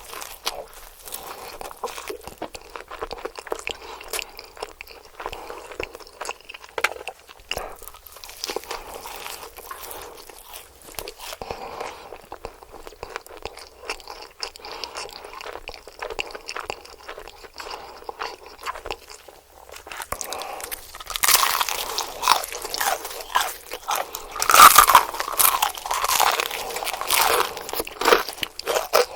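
Close-miked eating of crispy KFC fried chicken: crunching bites and wet chewing. The crunching grows much louder and denser about two-thirds of the way through.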